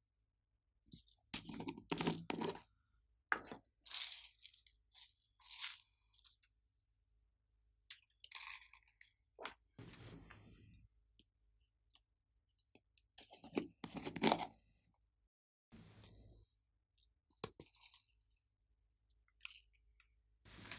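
Slime being worked by hand, giving crunchy, crackling squishes in irregular bursts with short quiet gaps between them.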